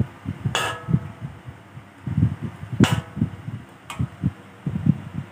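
A metal spatula stirring curry in an aluminium wok, with irregular low thuds and three sharp clinks that ring briefly as the spatula strikes the pan.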